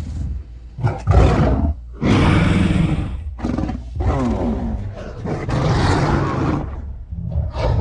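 Kong's film roar sound effects: a string of gritty, growling giant-ape roars and grunts with short breaks between them, some sliding in pitch.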